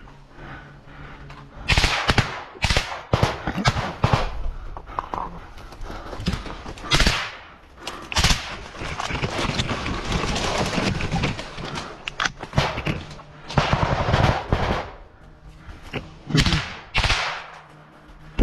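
Rifle and machine-gun fire in a close firefight: sharp shots, singly and in quick strings, coming in volleys from about two seconds in until shortly before the end, with a dense stretch of continuous firing in the middle.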